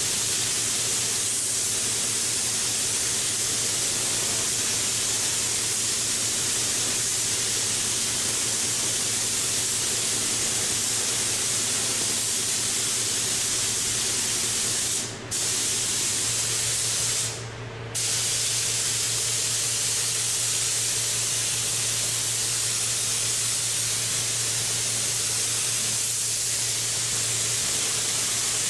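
Compressed-air spray gun hissing steadily as it sprays primer, the hiss breaking off briefly twice about halfway through. A steady low hum from the spray booth's exhaust fan runs underneath.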